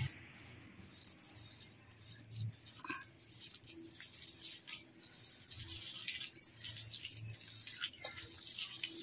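Fingers mixing a wet spice paste of masala powders, lemon juice and oil in a stainless steel bowl: soft squelching with scraping against the steel, busier in the second half.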